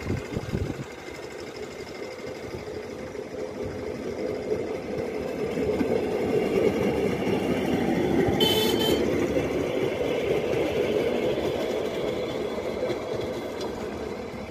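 Motorised rail inspection trolley running past on the track: its engine and wheel noise grow louder to a peak in the middle and then fade as it goes away. A short high-pitched horn toot sounds about eight and a half seconds in.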